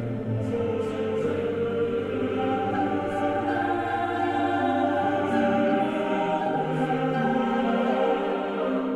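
Slow choral background music, voices holding long notes that change every second or so. A low bass note underneath drops out a little past halfway.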